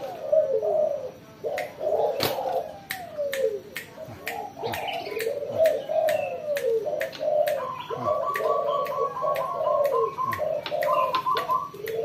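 Spotted dove cooing over and over in repeated falling coos, a tame decoy bird calling freely. About two-thirds of the way in, a quick higher trill of even pulses joins in for a few seconds, with scattered light clicks.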